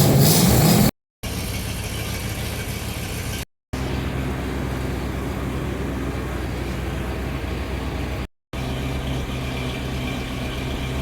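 1977 Chevrolet Corvette's small-block V8 warming up after a hard cold start: revved briefly for about the first second, then settling into a steady idle. The sound drops out completely three times for a moment.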